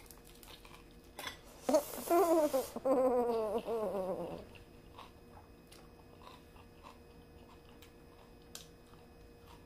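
A woman makes a wordless, closed-mouth vocal sound while chewing a mouthful of soft taco. It starts about two seconds in with a breathy burst, wavers, and falls in pitch over about two and a half seconds; the rest is quiet chewing.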